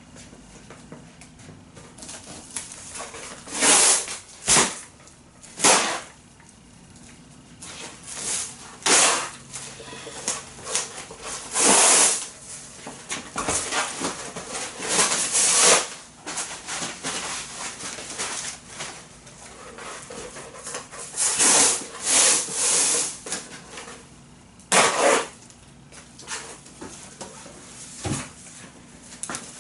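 Plastic packing wrap and foam padding being handled and crinkled in irregular bursts of rustling, several of them loud, with quieter rustle in between.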